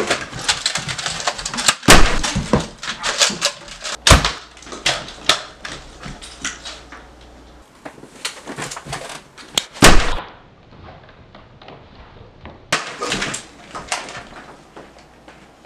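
A run of sharp shots and knocks in a toy-blaster shoot-out. The loudest come about two, four and ten seconds in, and they grow sparser after that.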